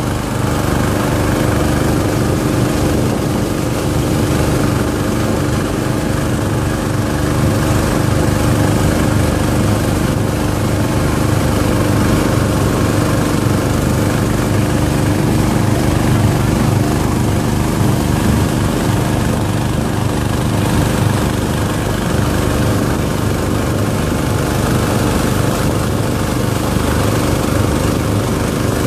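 Small motorboat's engine running steadily at cruising speed: a constant, even drone, with water rushing along the hull.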